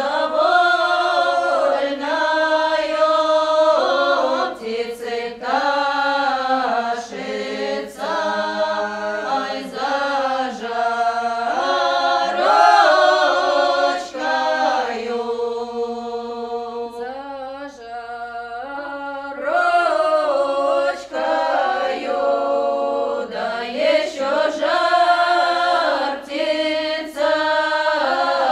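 Choir singing a slow Russian folk song without accompaniment, in long drawn-out phrases. About halfway through it thins to a quieter, wavering passage, then the full choir comes back in.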